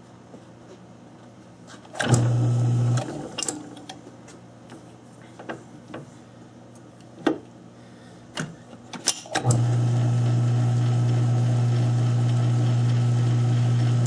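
South Bend lathe's electric motor running with a steady low hum, switched on for about a second near the start and then again for the last third, with scattered clicks and knocks of metal handling in between.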